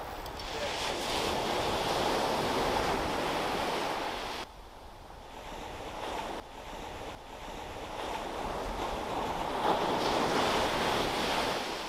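Ocean surf rushing onto the beach in two swells. The first cuts off abruptly about four seconds in, and the second builds again near the end.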